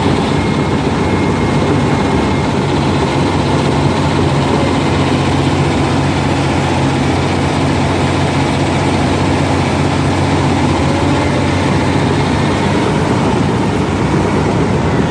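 Caterpillar D6 crawler dozer's diesel engine running steadily at a constant pitch.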